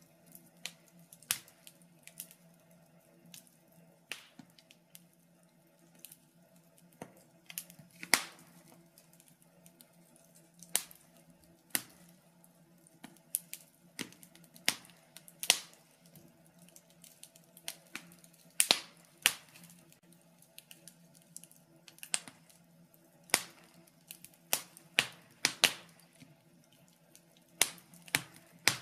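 Wood fire crackling in a fireplace: irregular sharp pops and snaps, some louder than others, over a faint steady low hum.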